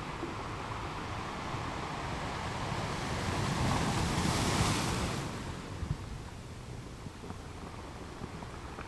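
Sea waves on a beach: the surf swells to a peak about four to five seconds in, then washes back and fades.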